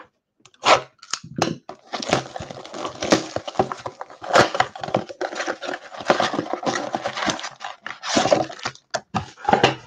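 A cardboard trading-card blaster box being torn open by hand, with the packs' plastic wrappers crinkling as they are pulled out. A few sharp cracks in the first second and a half give way to continuous crackling and rustling.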